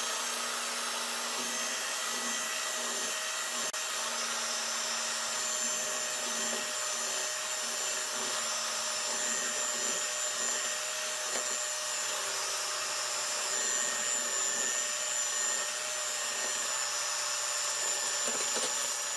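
Electric hand mixer running steadily at an even speed, its whisk beaters mixing sponge-cake batter of whipped eggs, sugar and flour: a continuous motor whine.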